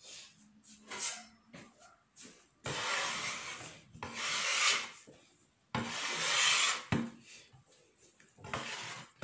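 Several rough scraping strokes, each about a second long, as hot boiled potatoes are mashed and worked in a bowl.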